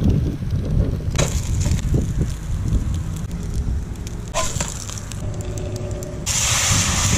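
Wind buffeting the microphone, with a plastic spatula knocking and scraping in a stainless steel skillet as an egg sandwich is turned and lifted out onto a plate. A louder burst of hiss comes near the end.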